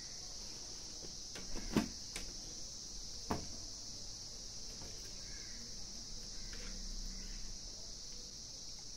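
Two sharp plastic clicks as the snap lid of a plastic water jug is worked open, about two and three seconds in, over a steady high-pitched drone of insects.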